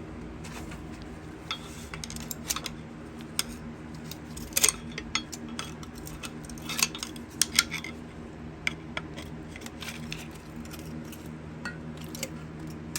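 Irregular metallic clinks and taps of steel engine parts and tools being handled, loudest a little under five seconds in and around seven seconds in, as a rod bearing that has rubbed through is worked off a 350 small-block Chevy connecting rod. A steady low hum runs underneath.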